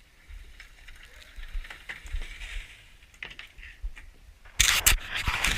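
Faint low rumble of wind on the microphone with a few small clicks, then about four and a half seconds in, loud rustling and scraping right against the microphone.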